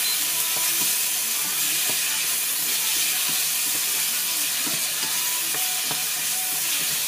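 Minced pork sizzling as it is stir-fried with shrimp paste and garlic in a hot pan: a steady hiss, with a wooden spatula scraping and knocking against the pan in scattered short clicks.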